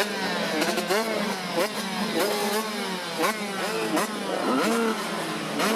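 A group of 85cc two-stroke motocross bikes revving together, each engine note sweeping up and dropping back again and again over the others, with a steady drone underneath.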